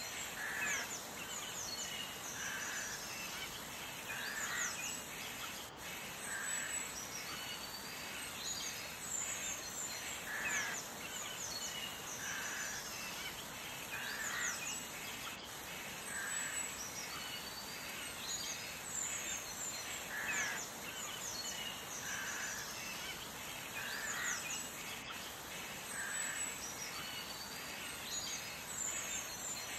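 Birds chirping and whistling over a steady hiss, with the same run of calls coming back about every ten seconds, as in a looped recording of birdsong.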